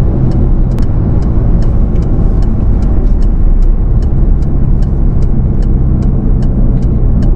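Car driving at road speed, heard from inside the cabin: a steady low rumble of tyres, engine and wind. A light regular ticking runs over it, about three or four ticks a second.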